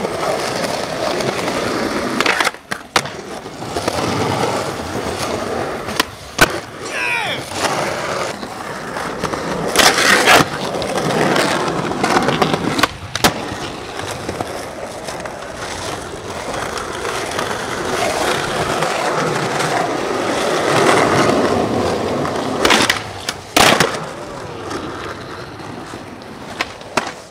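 Skateboard wheels rolling over concrete and stone paving, broken by several sharp clacks of the board popping and landing.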